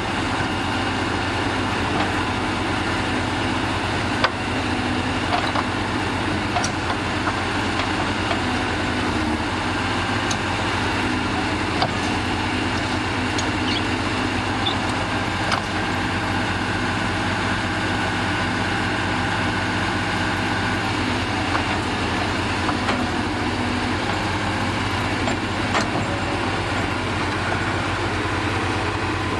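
Heavy diesel earthmoving engine running steadily at idle, with a few sharp clicks or knocks now and then.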